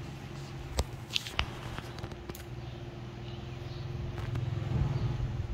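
Electric desk fan running with a steady low hum, with a few sharp clicks about a second in.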